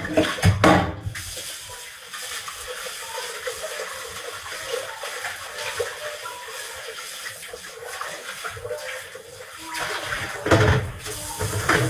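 Water running steadily with a continuous hiss, with a couple of louder bursts of sound in the first second and again near the end.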